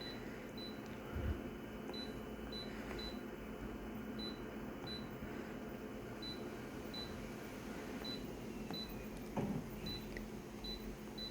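Photocopier running an enlarged copy: a steady low hum with short, high-pitched pips repeating every half second to a second, and a soft knock about a second in and again near the end.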